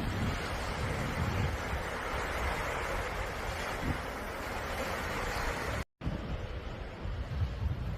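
Sea waves washing onto the shore in a steady rush of surf, with wind buffeting the microphone. The sound cuts out for a moment about six seconds in, and then comes back duller, with more low wind rumble.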